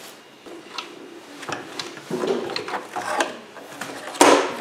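Hands handling the inside of an opened inverter: cables and metal parts rustling, with scattered light clicks and knocks and one louder clatter about four seconds in.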